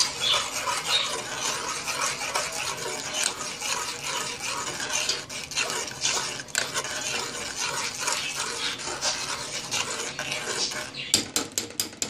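Metal spoon stirring a thin ketchup-and-honey sauce in a metal pot, a steady wet scraping against the pot. A quick run of sharp taps near the end.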